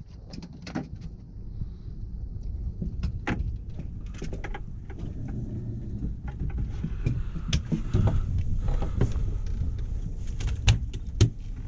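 Steady low rumble with many scattered sharp clicks and knocks, which come thicker and louder in the second half.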